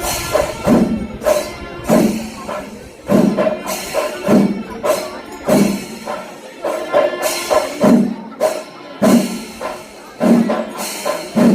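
Kerala temple festival percussion music: drums and cymbals playing a slow, steady beat, with a strong stroke about once a second and sustained pitched notes beneath.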